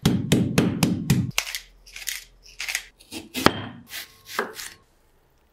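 A meat mallet pounding pork chops through plastic wrap on a wooden board: a fast run of about seven dull thuds in just over a second. Then crisp, separate knife cuts and knocks on a wooden cutting board, roughly every half second, as a chef's knife slices an onion.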